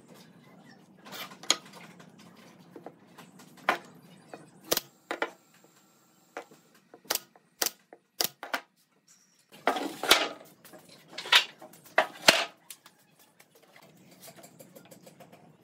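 Pneumatic brad nailer firing nails into glued pine blocks, a string of sharp single shots about a second apart, then a cluster of louder knocks of wood being handled on the workbench.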